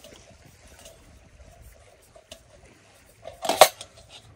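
Faint steady flow of a creek, then about three and a half seconds in a short, loud burst of noise as the Campy Gear 2-in-1 portable propane heater is handled and worked off its gas canister.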